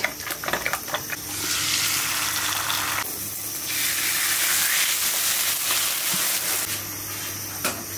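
A few clicks of a utensil beating egg in a bowl, then an egg omelette sizzling in a frying pan, a steady hiss that drops briefly partway through and eases off near the end.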